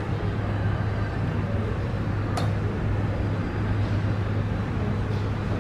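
Steady low mechanical hum over a rushing background, with a single sharp click about two and a half seconds in.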